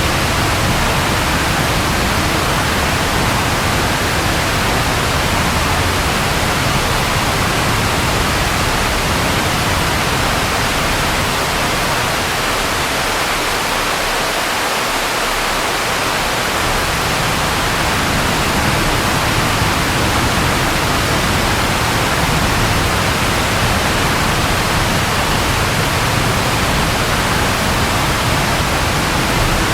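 Steady, even downpour of rain with a low rumble underneath that fades for a few seconds about halfway through, then returns.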